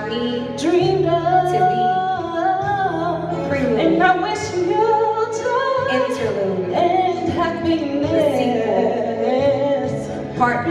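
A woman singing into a microphone in long, sliding held notes over a steady low musical backing.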